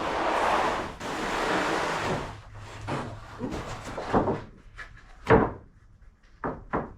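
Two long scraping, rushing sounds, then five or so short, sharp knocks, the loudest a little past the middle.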